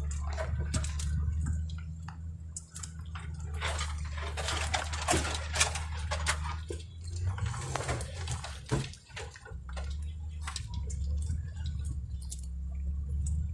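Ford F-250 pickup's engine running low and steady, heard from inside the cab, while tall grass and brush swish, crackle and snap against the truck as it pushes through the vegetation. The crackling is thickest in the middle of the stretch.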